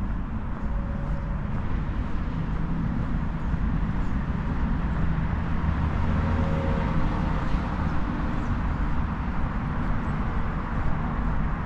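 Steady hum of road traffic, the engine notes of passing vehicles rising and fading, loudest about six to seven seconds in.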